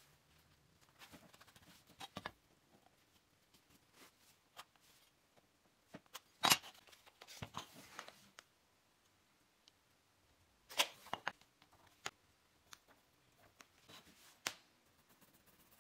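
Small wooden blocks, a pencil and a tape measure handled on a hard floor while marking and measuring: scattered light taps and clicks, a few sharper ones, with faint rubbing between.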